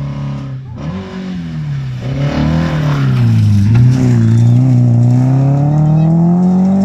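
A red Saab 96 rally car's engine at racing speed passing close by. The engine note rises, dips as the car goes by near the middle, then climbs steadily as it accelerates away on gravel.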